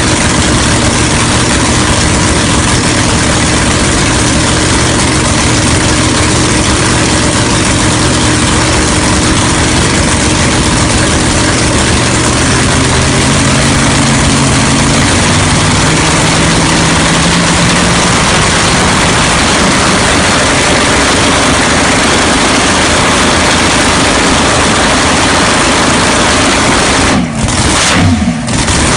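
Supercharged, alcohol-fuelled 496 big-block Chevy V8 in a front-engine nostalgia dragster running on its first fire-up. Its revs rise in steps about halfway through, then settle, and near the end the sound briefly drops away twice.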